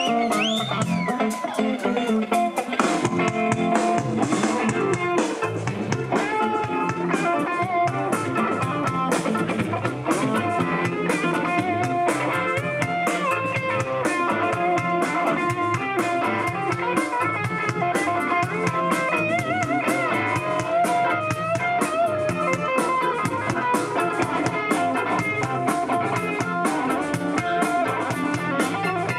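Rock band playing live in an instrumental passage: an electric guitar plays lead lines that bend and waver in pitch over a steady drum kit and other guitars.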